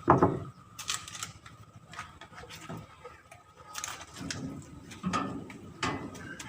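Irregular clicks and knocks, a sharp one right at the start and more scattered through, over a faint steady hum.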